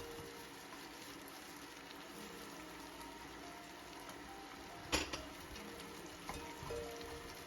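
Food sizzling in a frying pan, a steady hiss, with one sharp clink about five seconds in.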